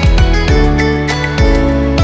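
Background music: a gentle instrumental track with plucked guitar-like notes over a steady beat.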